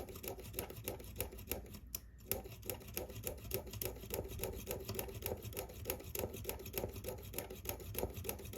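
Micro hand drill being turned by hand, clicking rhythmically about four to five times a second with a short pause about two seconds in, as its small bit enlarges a rivet hole in a MacBook Pro keyboard top case to take a screw.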